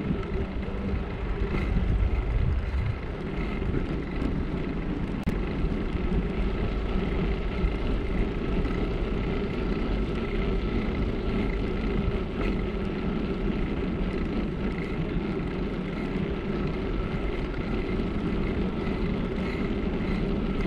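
Bicycle riding noise: tyres rolling on a paved road and then on brick pavers, with a steady hum, small rattling ticks and wind noise on the microphone.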